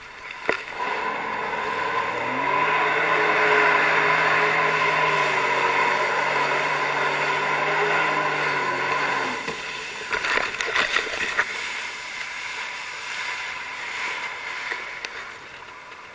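Jet ski engine running with rushing, splashing water. A steady engine hum holds for several seconds and stops about nine seconds in, leaving fainter water noise.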